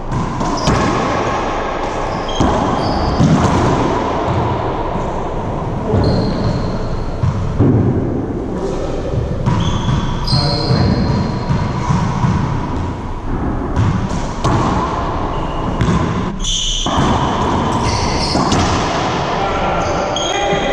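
Racquetball play on an enclosed hardwood court: the ball smacking off racquets, walls and floor again and again, with sneakers squeaking in short high chirps, all echoing in the court.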